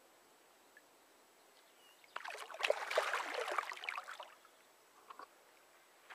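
A 5.2 kg carp splashing and swirling at the water's surface for about two seconds, starting about two seconds in, as it swims away.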